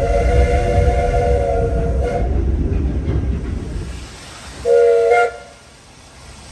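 Steam locomotive whistle: one long blast of about two seconds over the low rumble of the moving train, then a short blast a few seconds later.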